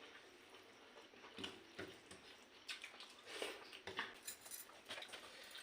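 Faint eating sounds: soft, irregular clicks and squishes of food being handled on a plate of watered rice, with light dish clinks.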